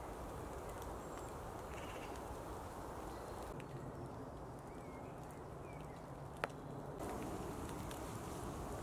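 Woodland ambience: a soft, steady outdoor rush with a few faint bird chirps near the middle and scattered small clicks. The background shifts twice as the scene changes.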